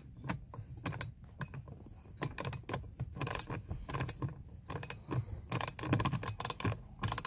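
Socket ratchet clicking in quick, uneven strokes, backing out the last bolt that holds the heater core housing in.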